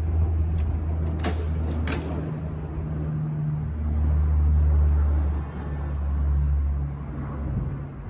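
Railway yard point lever being thrown by hand: a few sharp metallic clanks about a second in, over a steady low rumbling hum that swells and fades.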